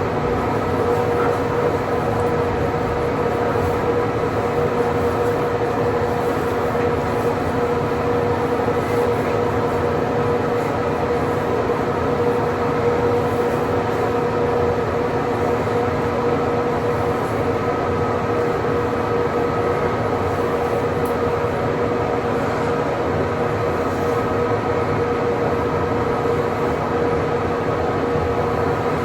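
Steady mechanical hum with a constant tone over a rushing noise, unchanging throughout.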